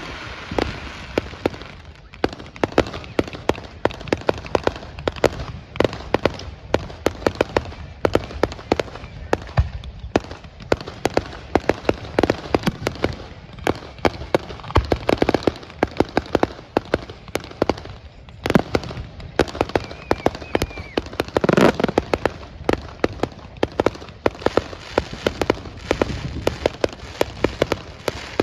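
Fireworks going off in a dense, continuous string of bangs and crackles, with a few louder bursts standing out about two-thirds of the way through.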